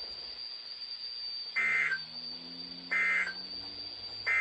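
NOAA Weather Radio's SAME end-of-message data bursts: three short, shrill two-tone digital squawks about 1.3 seconds apart. They are the coded signal that closes the weekly test message.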